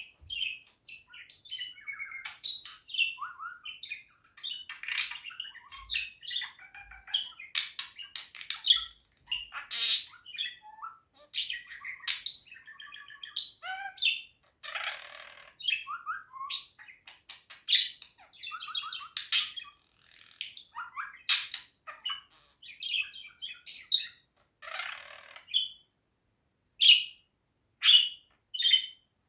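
Budgerigar warbling: a long, unbroken chatter of quick, varied chirps, clicks and squeaks, with a brief lull near the end.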